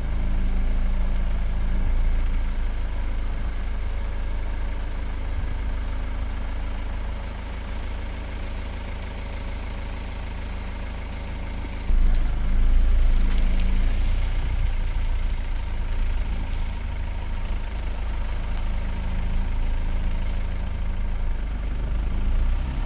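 Car engine and road noise heard from inside the cabin while driving: a steady low drone that gets louder about halfway through.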